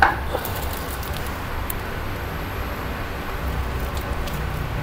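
CNC turning machine humming steadily, with a few faint clicks.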